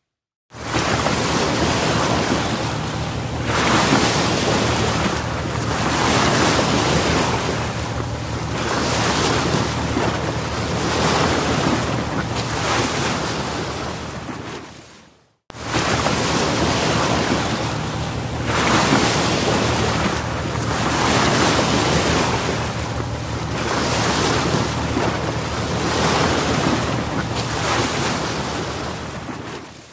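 Small waves breaking and washing up a sandy beach, the surf swelling and easing every two to three seconds, with wind buffeting the microphone. The sound drops out briefly about halfway through.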